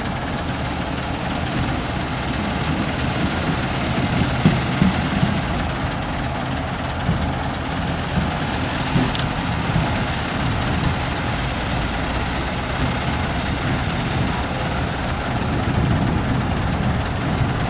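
Diesel engines of heavy trucks running as they move off, a steady low rumble, with a couple of short knocks about four to five seconds in.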